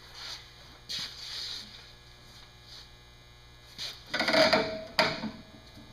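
Steady electrical hum, broken by a sharp knock about a second in and a louder clatter with a brief ring about four seconds in, ending in a click: metal parts being handled.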